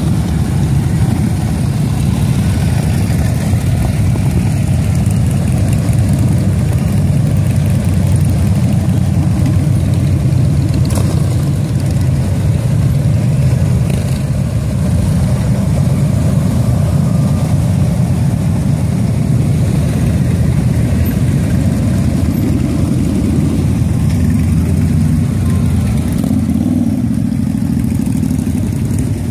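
A procession of touring motorcycles and trikes rolling slowly past one after another, their engines making a steady low rumble. There is a brief rise in engine pitch near the end.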